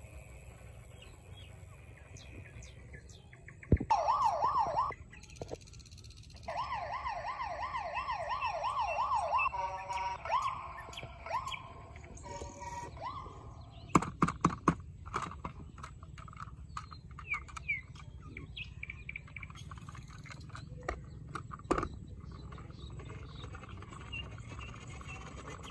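Electronic toy police-car siren warbling fast up and down in two short bursts, followed about halfway through by a quick run of sharp plastic clicks and knocks.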